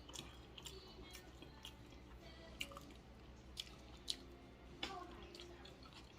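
Quiet, close-up chewing of food, with a handful of short, sharp wet mouth clicks and smacks spread through.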